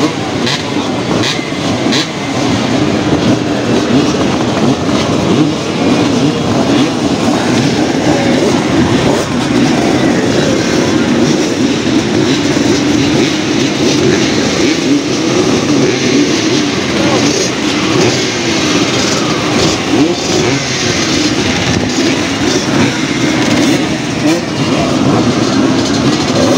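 Vintage motocross bikes racing on the track, their engines revving up and down as they pass.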